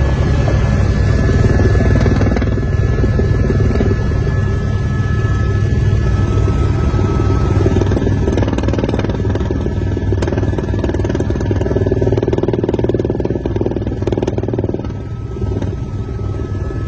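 Helicopter engine and rotor noise heard from aboard: a loud, steady drone with a faint high whine through the first half.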